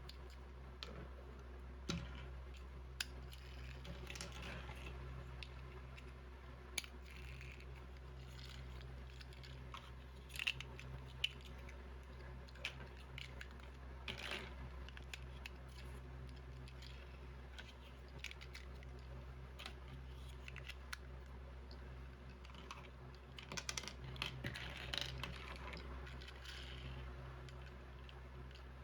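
Small hard plastic toy bricks clicking and rattling as they are handled, with light rustling, in scattered clusters over a steady low hum.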